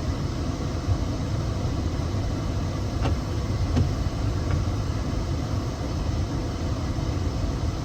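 Steady low engine and road rumble heard from inside a car's cabin, with a couple of faint clicks about three and four seconds in.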